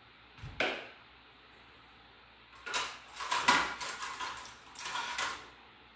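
Kitchen utensils being handled while a spoon is fetched: a single knock about half a second in, then a few seconds of clattering and clinking from about three seconds in.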